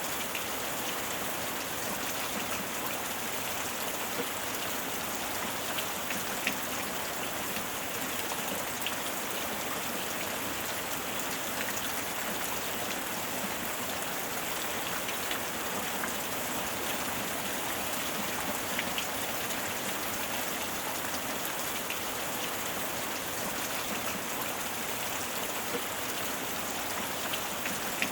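Steady heavy rain, a dense even hiss with scattered individual drops ticking on a surface.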